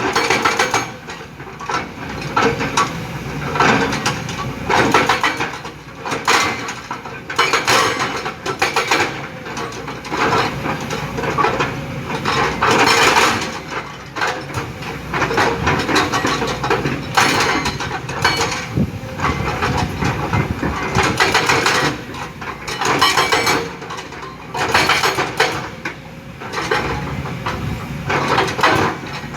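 Kobelco hydraulic excavator working in rock and stone: the engine runs steadily under load while loud bursts of clattering rock-and-steel impacts come every second or two.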